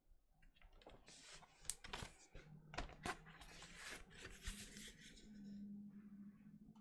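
Cardboard gatefold LP jacket being handled and turned around: rustling and scraping of the sleeve with a few sharp clicks, settling down near the end.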